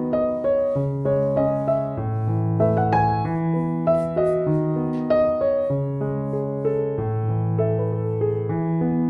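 Background piano music: a gentle melody of sustained notes over a slow bass line.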